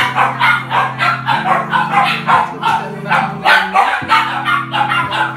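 Newborn puppies squealing over and over, about three short high cries a second, over background music with held low chords.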